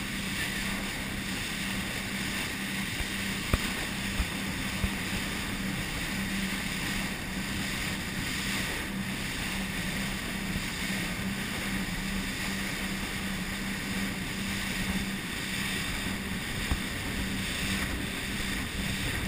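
Motorboat under way at speed: a steady engine drone under the rush of spray and wake along the hull, with wind buffeting the microphone. A few sharp knocks come in the first five seconds and once more near the end.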